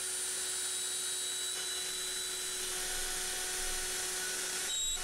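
Makita router spindle of a home-built CNC machine running at high speed while its end mill cuts aluminium plate: a steady high-pitched whine and hiss.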